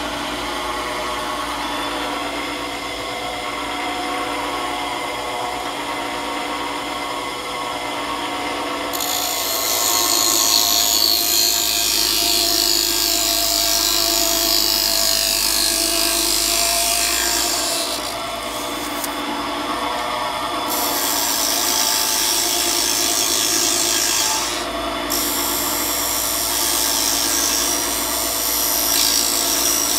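Wood-turning lathe running while a hand-held turning tool cuts a spinning wooden bobbin: a steady scraping, rasping hiss over the motor's hum. The cut gets heavier about a third of the way in and eases off briefly twice in the second half.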